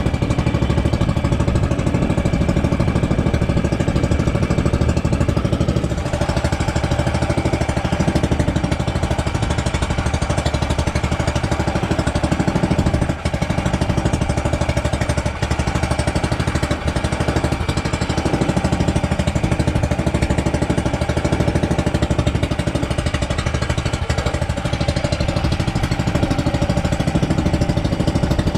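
Engine of an outrigger fishing boat running steadily under way, with a fast, even chugging.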